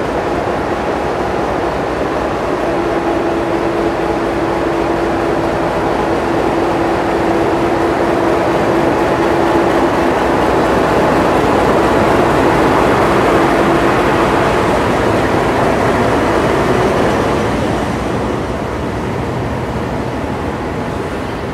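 Alco diesel locomotive running as it rolls slowly into a platform and past, with a steady tone held through the first two-thirds, growing louder as it comes alongside. The sound drops back to the lighter rumble of the carriages rolling behind it.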